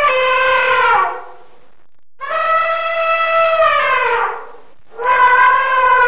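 Elephant trumpeting: three long, steady-pitched calls. The first tails off about a second in, the second drops in pitch as it ends, and the third starts near the end.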